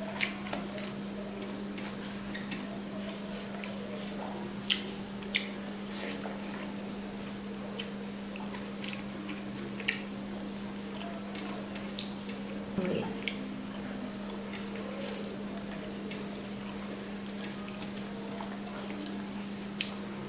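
Close-miked mukbang eating by hand: wet chewing, lip smacks and sharp mouth clicks every second or two, with a short squishy cluster around the middle. A steady low hum runs underneath.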